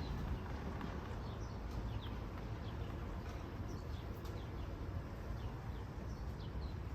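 Faint outdoor ambience: small birds chirping now and then over a steady low rumble.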